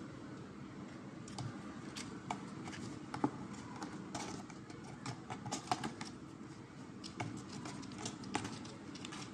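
Kittens' claws scratching and tapping on a cardboard box as they play: irregular light clicks and scrapes over a steady low background noise.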